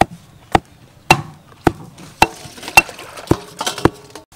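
Stone pestle pounding chopped green herbs in a stone mortar: sharp, evenly paced knocks, about two a second, eight in all.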